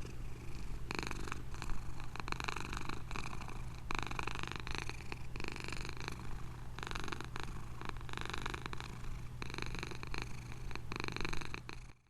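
Domestic cat purring, a continuous low rumble that swells and eases in cycles of about one to two seconds with each breath in and out. It stops abruptly at the very end.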